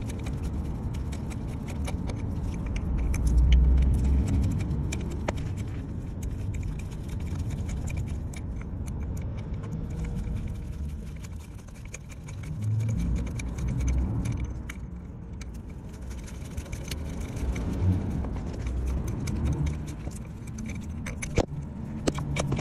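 Rusty bolts of a BMW M57 diesel's crankshaft pulley (vibration damper) being unscrewed by hand with a socket: scattered small metallic clicks and clinks, over a low, uneven rumble.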